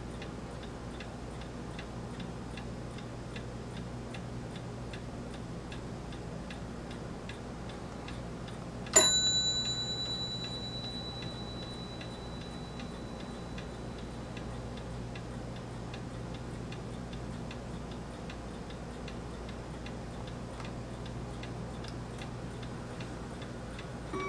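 Steady, even ticking over a low hum. About nine seconds in, one bright ping rings out and fades over a few seconds.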